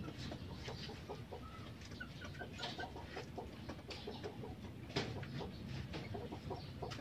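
Chickens clucking, with scattered light clicks and knocks over a steady low background.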